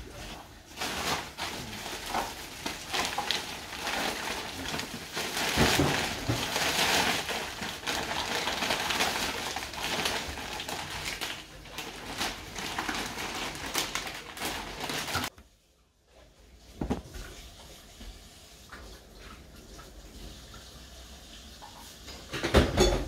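Kitchen tap running into the sink while baby bottles are washed, with clatter and the crinkle of plastic snack bags. About 15 seconds in it gives way to quieter rustling of clothes being folded, with a short loud noise near the end.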